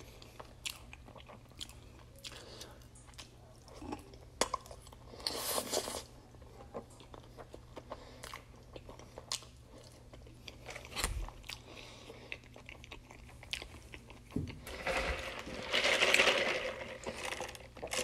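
Close-up chewing and crunching of loaded fries eaten off a fork, with scattered small clicks and crunches. Near the end comes a longer, louder stretch of noise.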